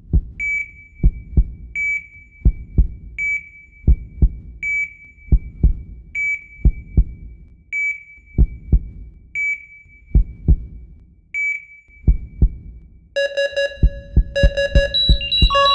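Heart monitor sound effect: a single high electronic beep about every one and a half seconds, each paired with the low double thump of a heartbeat. About thirteen seconds in, the beeping stops and a busier layer of several steady tones with quicker thumps takes over.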